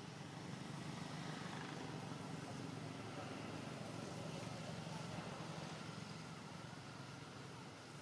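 Steady low background hum with a faint even hiss above it, without distinct calls or knocks.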